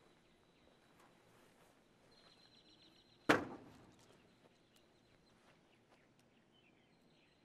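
A single sharp bang about three seconds in, dying away with a short ringing tail.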